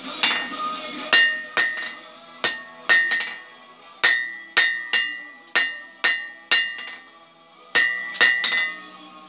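Hammer striking a red-hot steel ring on an anvil to forge the eye of a grappling hook, about fifteen blows in irregular runs, each with a bright ring from the anvil that dies away, and a short pause about seven seconds in.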